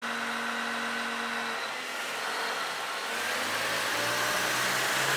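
Komatsu HD785-7 rigid dump truck's diesel engine running with a steady whine. After about three seconds the pitch begins to climb as the engine speeds up.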